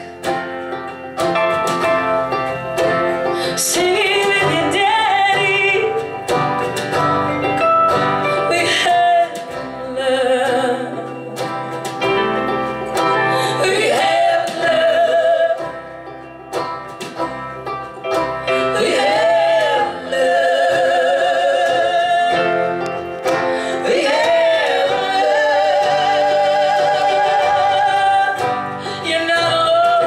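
Live folk band playing: a woman sings a slow melody, holding long notes with vibrato, over banjo, guitar, electric bass and drums.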